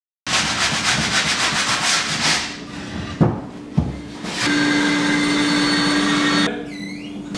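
Rapid rubbing strokes on wood, like sanding, for about two seconds. Then two sharp knocks and a steady hum lasting about two seconds.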